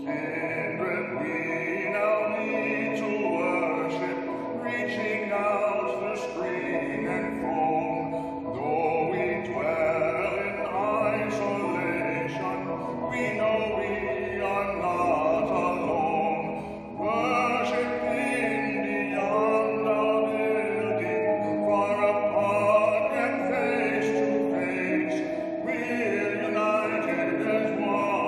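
Classical music with a trained voice singing long held notes in an operatic style over instrumental accompaniment.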